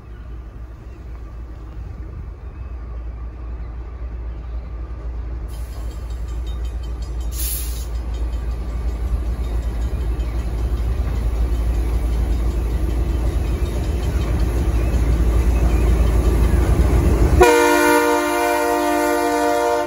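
GE B23-7 diesel locomotive approaching with a heavy low engine rumble that grows steadily louder, then sounding its horn in one steady blast of several tones for about the last two and a half seconds as it passes close.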